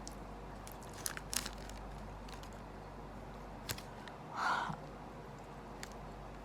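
Faint sounds of someone chewing chocolate, with a few small sharp clicks and a short, slightly louder noise about four seconds in.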